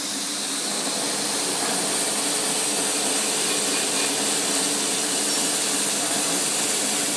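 Central-drum slitter rewinder running steadily, winding web slit into 3 mm strips onto a core: a steady mechanical hum with a continuous high hiss, slightly louder from about a second in.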